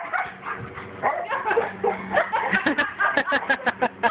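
Two dogs playing rough, barking and yipping at each other, with a quick run of short yips in the second half.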